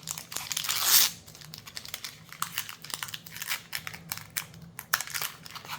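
A Magic: The Gathering collector booster pack wrapper being torn open, with a loud tearing rush about a second in, then a run of crinkles and small clicks as the wrapper and cards are handled.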